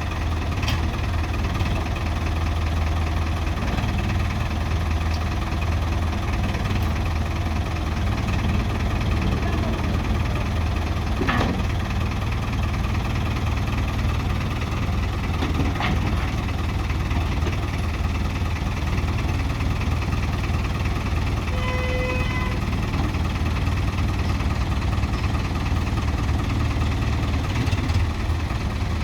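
A Ford backhoe loader's engine idling steadily, with a brief short tone about three-quarters of the way through and a couple of faint clicks.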